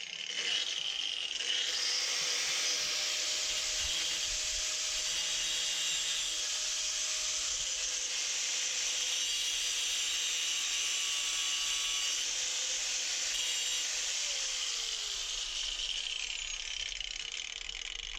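Angle grinder grinding the edge of a freshly cut piece of metal to round it over and take off the sharp edge. It makes a steady hissing grind over a faint motor whine, and the whine drops in pitch near the end.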